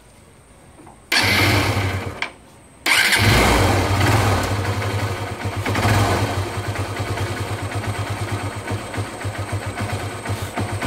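Honda Unicorn 150's single-cylinder four-stroke engine turned over by its freshly repaired electric starter motor. A first burst of about a second dies away, then a second try about three seconds in catches and the engine keeps running at a steady, even idle, the starter now working normally.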